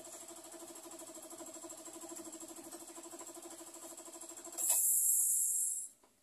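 Small electric air compressor running with a steady pulsing hum, then shutting off about four and a half seconds in, followed at once by a loud hiss of released air lasting just over a second. This is the unloader valve venting as the tank reaches cut-out pressure.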